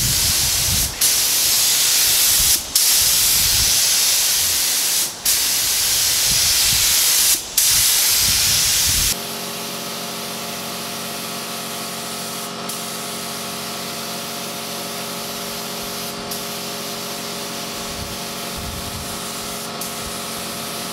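Compressed-air spray gun hissing as lacquer is sprayed onto the table top, in long passes with four short breaks where the trigger is let go. About nine seconds in the hiss drops and a steady machine hum joins the fainter spraying.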